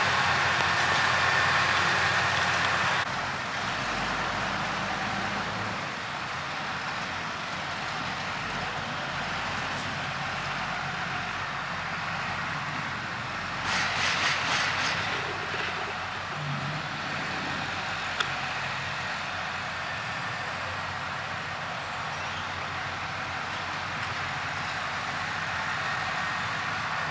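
A motor running steadily, with a cut in the sound about three seconds in and a brief louder stretch about halfway through.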